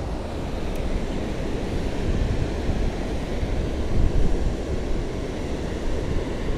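Wind buffeting the microphone: a steady, gusty low rumble that swells briefly about four seconds in.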